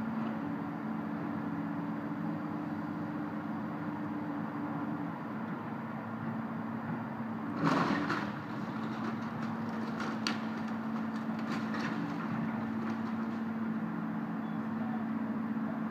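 Excavator's diesel engine running steadily during house demolition, with one loud crash about halfway through and a few sharp knocks after it as the building is broken apart.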